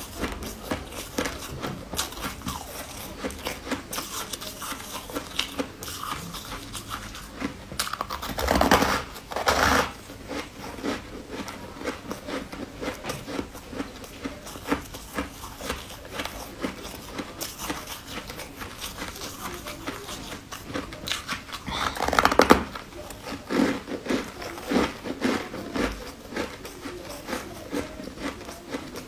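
Close-miked chewing and mouth smacks of someone eating a soft white Chinese sweet bun, many small wet clicks, with two louder stretches of biting and tearing about nine seconds in and again near twenty-two seconds.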